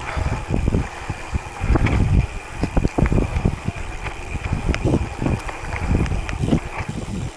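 Gravel bike riding over a rough dirt track: wind buffeting the microphone and tyres rumbling, with irregular knocks and rattles as the bike goes over bumps.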